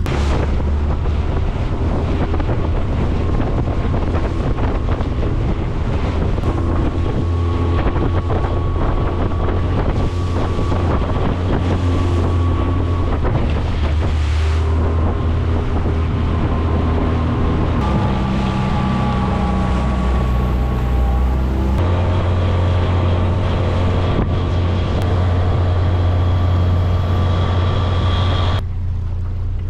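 Small outboard motor on a 12-foot aluminum boat running at speed, its engine note shifting a couple of times, with wind buffeting the microphone and water splashing against the hull. Near the end the wind and splash noise drops away, leaving mostly the motor.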